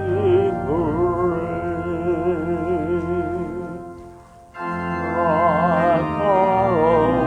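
A hymn sung to organ accompaniment, with held organ chords under wavering vocal lines. The music falls away briefly about four seconds in, a pause between lines, then organ and voices start again.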